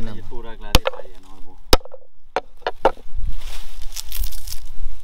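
A large knife chopping through a plant stalk on the ground: two sharp chops about a second apart, then three lighter quick cuts, followed by a longer rustling.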